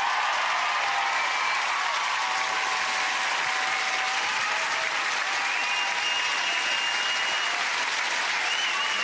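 Studio audience applauding steadily, with a few high whistles over the clapping.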